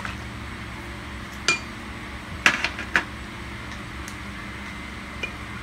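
Chopsticks and dishes clinking at a meal: a few short sharp clinks, the loudest about two and a half seconds in, over a steady low hum.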